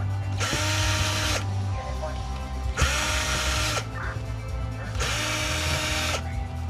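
Cordless drill/driver backing screws out of an inkjet printer's frame, run in three bursts of about a second each, its motor whine rising as it spins up each time.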